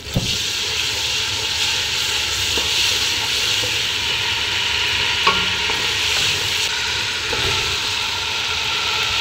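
Ground ginger-garlic paste sizzling in hot oil in a large aluminium pot as it is stirred with a wooden spatula. The sizzle starts suddenly and stays steady, with one sharp knock about five seconds in.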